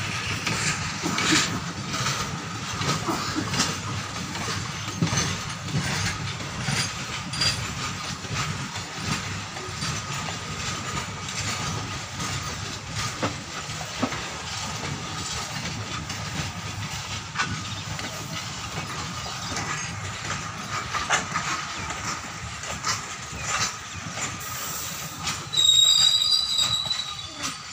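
Train running through a station yard, heard from inside a coach at an open window: steady rolling noise with wheels clicking over rail joints and points. About 25 seconds in, a loud high-pitched metallic squeal lasts a couple of seconds.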